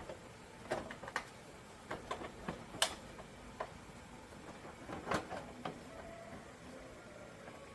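Irregular light clicks and taps, about a dozen spread unevenly, from hand tools and small parts being handled during motorcycle repair work.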